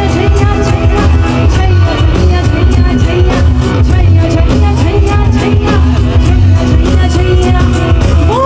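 Loud music with a steady, heavy bass beat and a melody over it.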